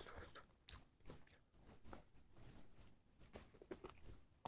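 Faint close-up mouth sounds of a person chewing chicken with mayonnaise, sped up to double speed: irregular wet clicks and smacks.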